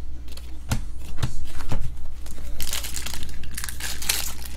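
Trading-card pack wrapper crinkling and tearing as a pack is ripped open by hand, after a few sharp taps of cards being handled in the first two seconds.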